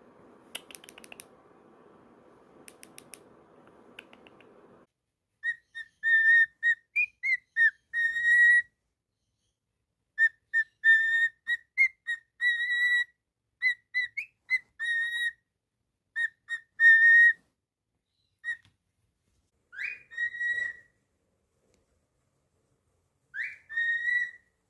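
Cockatiel whistling a tune in clear, short notes grouped into phrases with brief pauses, starting about five seconds in. Near the end come a few notes that swoop upward. Before the whistling, a few faint clicks are heard over a low hum.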